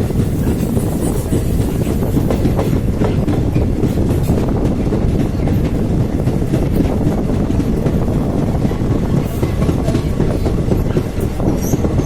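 Passenger train rolling across a railway bridge, its coaches making a loud, steady rumble with the clickety-clack of wheels over the rail joints.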